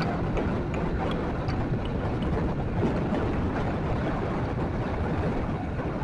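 Steady low rumble of a motorcycle ride through traffic, picked up by the rider's camera microphone.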